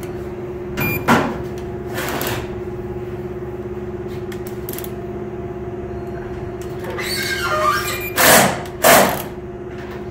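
Torque wrench ratcheting as the cam cap bolts on a BMW S1000RR cylinder head are tightened in sequence. It makes a few short ratcheting strokes, with the two loudest near the end, over a steady low hum.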